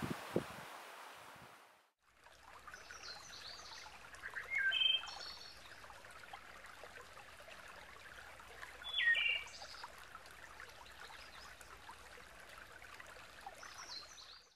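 A stream trickling, with a few short bird chirps over it, loudest about five and nine seconds in. Before that, a louder rushing noise with a couple of low knocks at the very start fades out about two seconds in.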